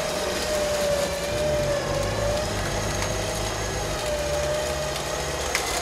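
Car engine running hard under load as a stuck SUV is towed out of deep mud. It gives a steady whine that wavers slightly in pitch over a low rumble.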